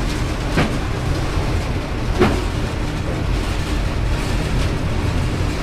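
WAP4 electric locomotive running under power at notch 21, heard from inside its cab as a steady low rumble. Two sharp knocks stand out, about half a second and two seconds in.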